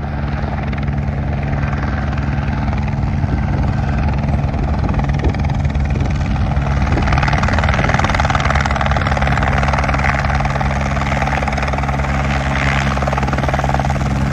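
Helicopter coming in to land close by: steady rotor and engine noise that grows gradually louder as it approaches, strongest over the last half as it comes down to hover just above the ground.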